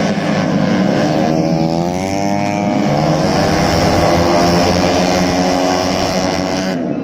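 Racing motorcycle engines at full throttle. Their pitch rises and falls as the bikes pass, several engines overlapping.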